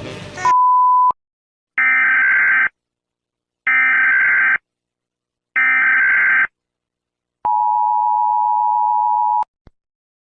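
Emergency alert broadcast tones: a short beep about half a second in, then three one-second bursts of digital data tones about two seconds apart, then the two-tone attention signal held for about two seconds and cut off sharply.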